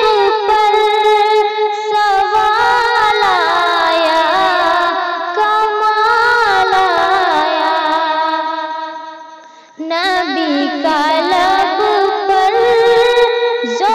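A woman singing an Urdu naat, a devotional song in praise of the Prophet, with no instruments, drawing out long ornamented notes with a wavering pitch. Her phrase fades away from about eight seconds in, and a new one starts sharply just before ten seconds.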